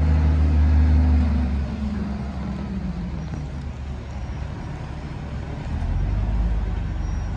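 Large diesel engines of heavy Caterpillar mining machinery running with a deep, steady drone. The drone eases and changes pitch about a second and a half in, then swells again near the end.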